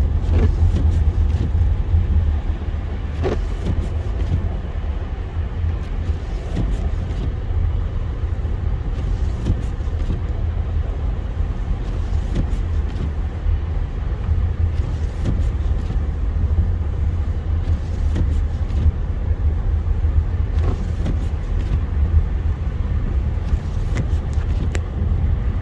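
Car driving on a snowy, salted highway, heard from inside the cabin: a steady low rumble of engine and road noise, with a few faint ticks scattered through.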